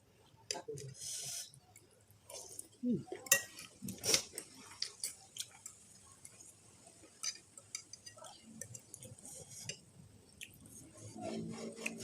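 Eating noodle soup: a spoon or fork clinking now and then against the bowl, among small wet mouth sounds of eating, with a few louder clinks about three to four seconds in.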